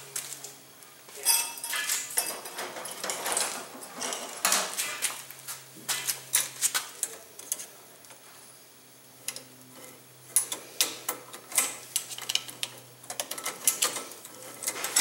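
Irregular metallic clinking, tapping and scraping as the steel trigger parts of a 330 conibear trap and a hand tool are worked in a bench vise. There is a quieter lull about seven to nine seconds in.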